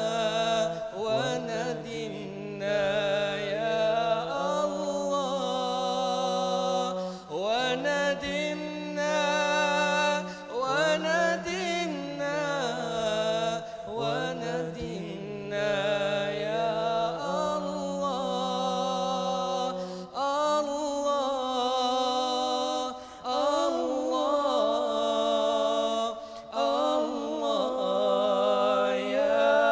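Melodic zikir: a congregation of men's voices chanting 'Allah' together, led by one voice that slides and ornaments between long held notes. A steady low hum runs under the chant for the first two-thirds.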